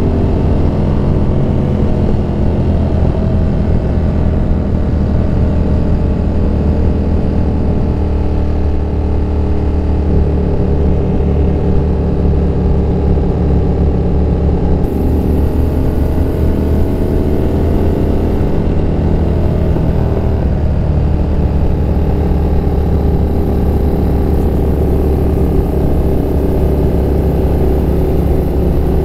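Motorcycle engine running steadily on the move, its pitch rising and falling a little with the throttle around the middle.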